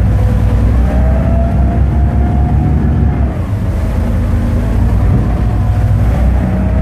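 Pilot boat's engines running hard under way in rough sea, heard inside the wheelhouse: a loud, steady low drone with a thin whine above it that wavers up and down in pitch.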